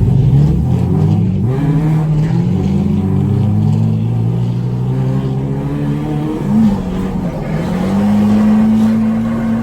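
Drift car's engine running at high revs, holding a steady note, blipping up briefly about six and a half seconds in, then settling at a higher steady note.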